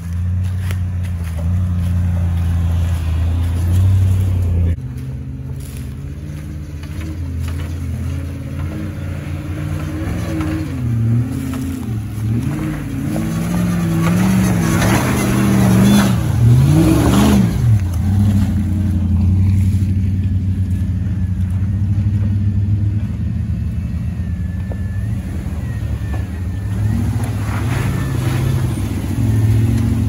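Off-road 4x4 engines working on a dirt trail. A steady engine note gives way to an engine revving up and down again and again while a wheel spins in the dirt. The revs peak a little past halfway, then settle back to a steady pull.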